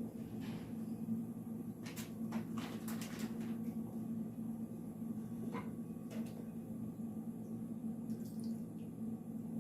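Stirring cheese sauce in a saucepan: scattered scrapes and light clicks of the utensil against the pan, bunched about two to three and a half seconds in and again around six seconds, over a steady low hum.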